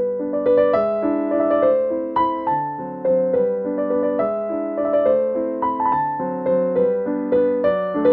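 Background music: a gentle piano melody with chords, its notes struck and decaying in a steady, even rhythm.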